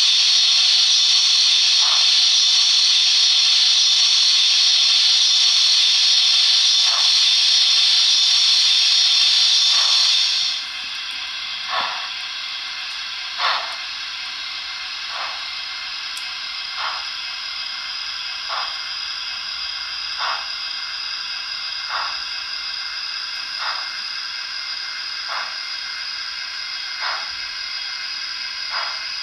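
Digital sound decoder of a model Stanier Princess Coronation Pacific steam locomotive, playing through the model's onboard speaker. A loud steam hiss cuts off suddenly about ten seconds in. After that comes a quieter steady hiss with slow, even exhaust chuffs about every 1.7 seconds as the locomotive moves off slowly.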